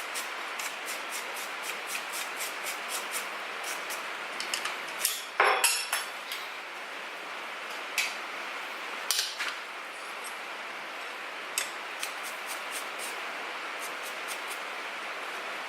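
Brass wire brush scrubbed against hot forged steel, in a series of short scratchy strokes and light metallic clinks over a steady hiss, with a louder clatter about five and a half seconds in. The brushing rubs a thin film of brass onto the black-hot steel to give it a golden colour.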